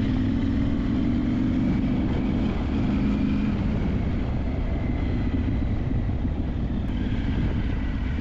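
A vehicle engine running steadily while driving off-road, with the constant rumble of the ride; the pitch drifts only a little.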